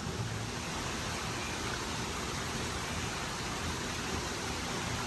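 Steady, even hiss of light rain falling.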